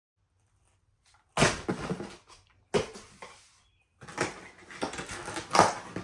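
Packaging being handled as parts are taken from the box: two sudden rustling, clattering bursts, then steady rustling from about four seconds in.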